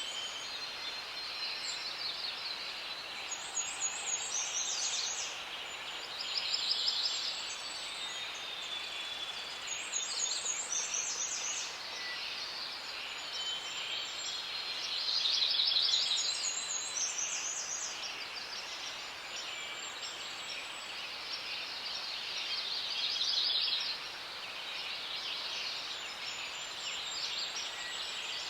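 Forest ambience: birds singing short, high, fast-trilled phrases that recur every few seconds over a steady high background hiss.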